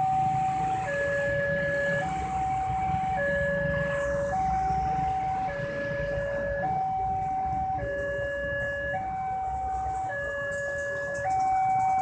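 Railway level-crossing warning alarm sounding its repeating two-tone signal, a higher and a lower tone taking turns about every second. Underneath is the low rumble of waiting traffic.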